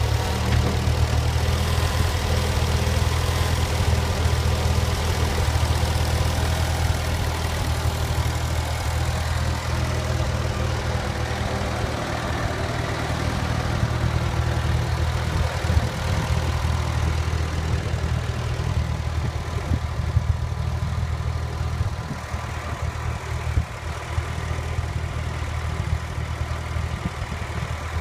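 Ford 8N tractor's four-cylinder flathead engine idling steadily, growing a little fainter in the second half.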